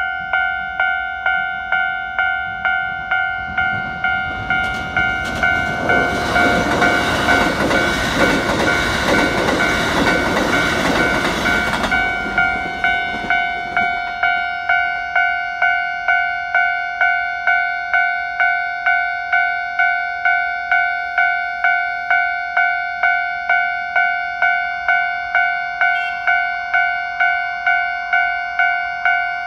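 Japanese level-crossing warning bell ringing steadily, about one and a half strikes a second. From about four seconds in, for about ten seconds, a Keikyu 1500-series train passes over the crossing, its wheels clattering over the rail joints.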